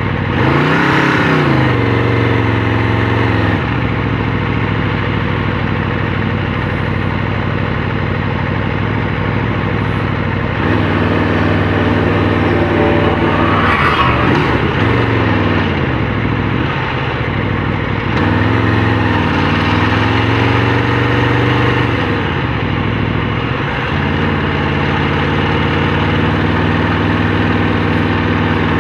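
Aprilia RSV4 RF's V4 engine running at low speed, the revs rising and falling three times as the bike pulls and eases off, with steady running in between.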